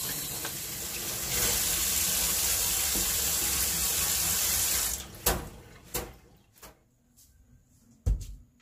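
Kitchen tap running into a stainless steel sink as vegetables are rinsed under the stream. The water cuts off about five seconds in. A few sharp knocks follow, the loudest near the end as a metal pot is handled on the cooktop.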